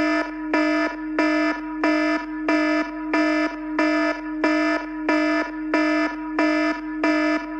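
Electronic alarm-like buzzer tone: a steady drone under a buzzing pulse that repeats evenly about one and a half times a second.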